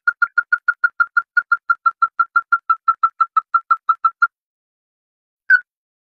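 Crake (the red-eyed 'mắt đỏ' or 'ti nỉ' bird) calling: a rapid, even run of short, hard notes, about seven a second, that stops about four seconds in, followed by a single note near the end.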